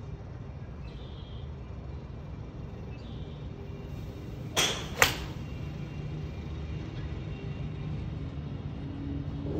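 Golf iron swung at a ball on a driving-range hitting mat: a brief swish, then a single sharp click of the clubface striking the ball, about halfway through.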